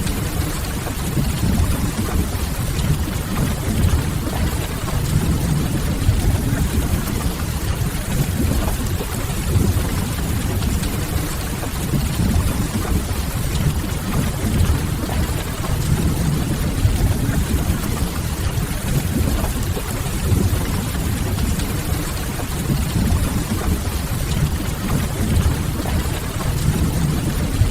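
Steady rain with a deep, even low rumble beneath it and a soft crackle of burning firewood, mixed as a continuous ambience.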